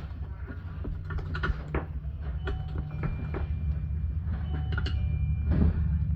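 Scattered metallic clicks, knocks and brief ringing clinks of small engine parts and tools being handled, over a steady low rumble.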